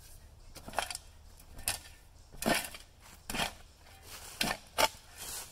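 Gritty crunching and scraping in dirt, a short stroke about once a second, the sharpest one near the end.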